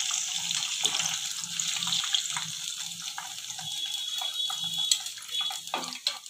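Prawns deep-frying in hot oil, a steady sizzle with scattered crackles, while a wire-mesh strainer lifts them out. A sharp click comes about five seconds in, and the sizzle falls away near the end.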